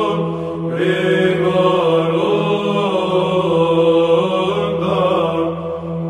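Byzantine choir chanting: voices sing a slow, melismatic melody over a steady held drone note (the ison), with short breaks between phrases about half a second in and again near the end.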